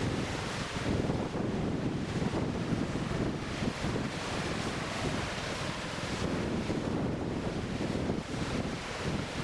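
Wind buffeting the microphone in uneven gusts, with the wash of waves beneath it.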